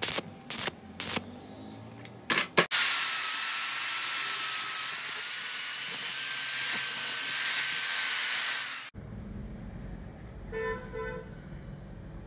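Several short bursts of stick-welding arc crackle as tacks are laid on a steel square-tube joint. About three seconds in, an angle grinder starts grinding the weld: a loud, steady hiss with a faint whine, running about six seconds before it stops suddenly.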